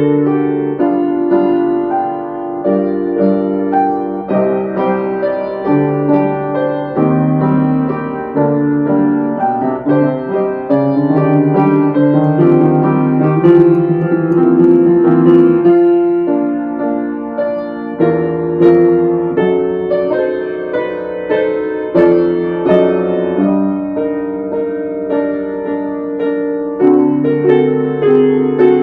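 Piano music: chords and a melody, notes struck and fading, with a steady pulse.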